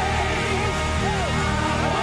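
Live gospel worship band music: sustained low bass and keyboard notes under a wavering, gliding melody line.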